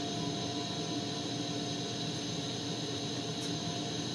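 Propane-oxygen glassworking torch burning with a steady hiss, a faint steady hum underneath.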